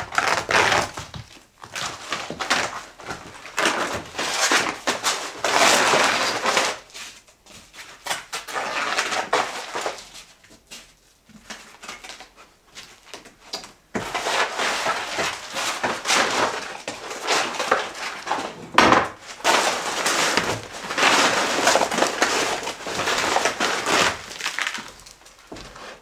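An old black covering layer being peeled and torn up off pine floorboards by hand: crackling, tearing and scraping in long stretches with brief pauses between pulls.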